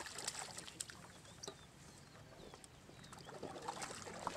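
Light splashing and sloshing of water as a hooked fish thrashes at the surface and is drawn into a landing net, picking up again near the end. Faint bird chirps in the middle.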